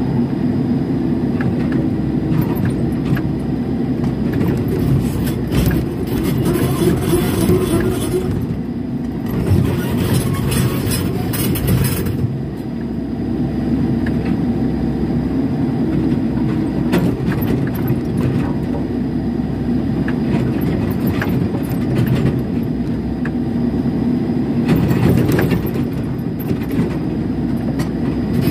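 Mini excavator's diesel engine running steadily under load, heard from the cab, with scattered clanks and rattles of the bucket and stones as it digs and swings.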